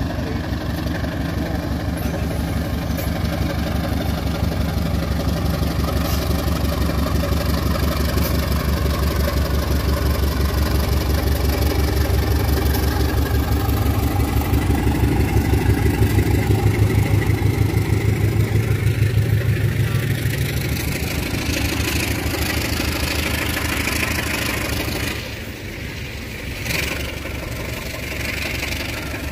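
Diesel locomotive passing at close range while hauling passenger coaches. Its engine gives a deep, rhythmic throb that grows louder until the locomotive goes by, past the middle. It then gives way to the rushing wheel-and-rail noise of the coaches rolling past, with a few sharp clacks near the end.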